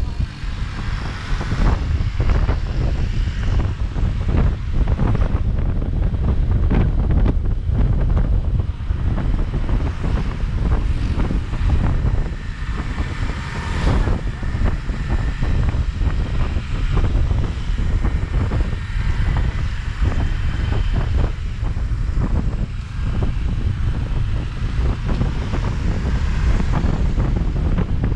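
Wind buffeting the microphone over a steady low rumble of a vehicle moving on the road.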